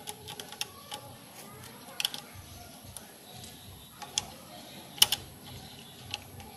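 Irregular light clicks and taps of small parts being handled as a carbon brush is fitted into the brush holder of a cut-off machine's motor, the sharpest about two and five seconds in.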